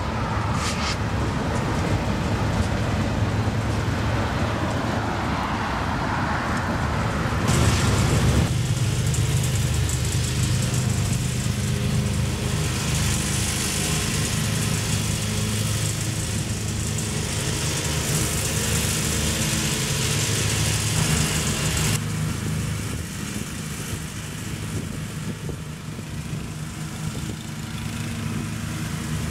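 For about the first seven seconds, road traffic and a passing diesel freight train, swelling as a vehicle goes by. Then a Toro riding lawn mower's engine running steadily as it cuts grass.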